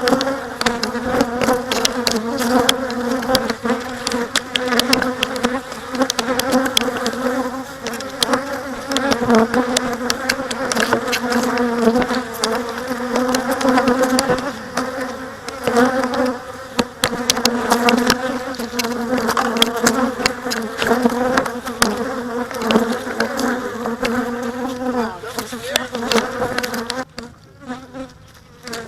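Honey bees swarming around an opened hive, a steady buzzing hum broken by many sharp clicks and knocks. Near the end the buzzing suddenly drops away and grows quieter.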